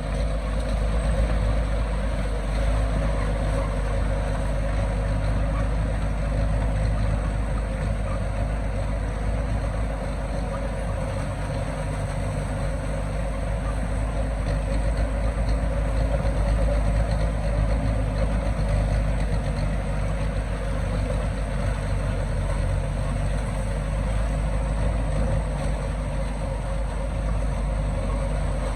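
Heavy diesel earthmoving machinery, a bulldozer or dump truck, running steadily with a deep rumble and no distinct knocks or revs.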